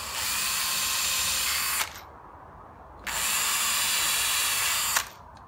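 Cordless drill running at speed in two steady bursts of about two seconds each, drilling holes in wood for hinge screws.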